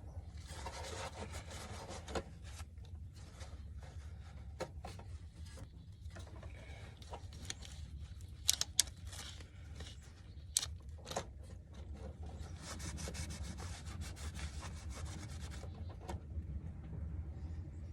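Irregular scrubbing and rubbing on battery cable ends as sprayed-on battery cleaner is cleaned off, with a few sharp clicks near the middle, over a steady low hum.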